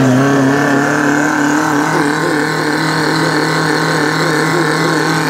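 Suzuki Jimny's engine held at steady high revs while the 4x4 works through deep mud, its pitch rising slightly over the first second or so and then holding.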